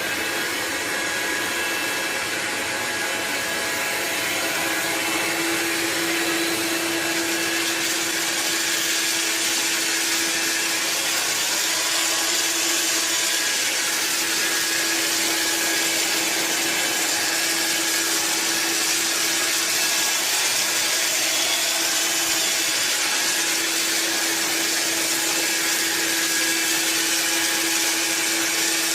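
Hoover Linx 18V cordless stick vacuum switched on, its motor whine rising briefly as it spins up and then running steadily with a loud rush of air. A low hum joins about five seconds in and holds.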